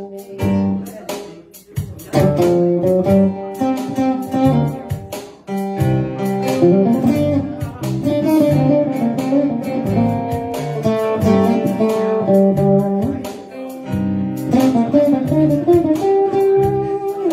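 Live band playing without singing: an amplified acoustic guitar strummed steadily over a keyboard accompaniment with a moving bass line.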